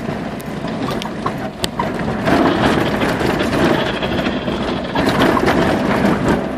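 4x4 vehicle driving off-road, heard from inside the cabin: the engine running under a steady rumble of road noise, with scattered knocks and rattles from the body over rough ground.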